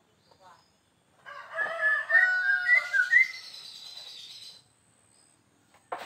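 A rooster crowing once: one drawn-out call of about three seconds, beginning about a second in, rising and falling in pitch several times.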